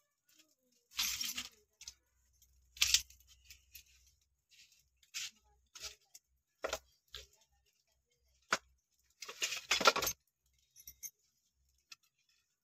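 Thin dry wooden strips being split and snapped by hand: a scattered series of sharp cracks and splintering tears with quiet gaps between them, the loudest run of cracking about nine to ten seconds in.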